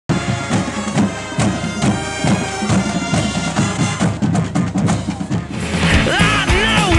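Soundtrack music with a steady drum beat; a quick stuttering run about four seconds in leads into a louder rock section about five and a half seconds in.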